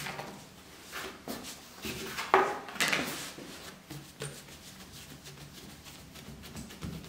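Hands handling a ball of bread dough on a floured wooden worktop: a few soft slaps and knocks as it is flipped, the loudest about two and a half seconds in. The dough is then pressed flat with the fingers and knuckles to push the air out, giving quieter pressing and rubbing sounds.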